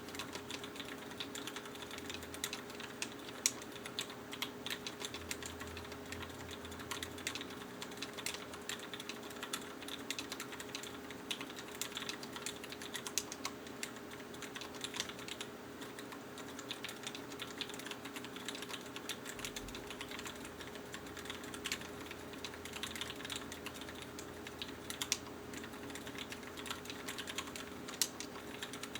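Continuous typing on an MX-Mini mechanical keyboard with vintage Cherry MX Black linear switches, fitted with 65 g springs and lubed: a steady stream of key presses, several a second, with a faint steady hum underneath.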